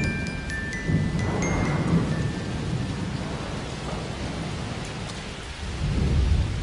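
Steady rain with low rolling rumbles of thunder, swelling near the end. A few bell-like mallet notes, like a glockenspiel, fade out in the first two seconds.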